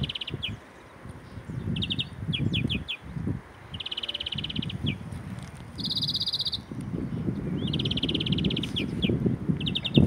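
European greenfinch singing: several fast trilling rattles, each under a second long, one of them pitched a little higher, with short quick chirps between them. An uneven low rumble of background noise runs underneath.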